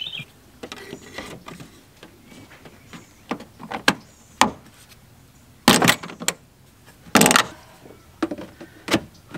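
Clicks and knocks of a van's plastic engine air-filter housing being handled as a new round filter is seated and the housing cover is fitted back on, with two loud clunks a little before six seconds in and just after seven.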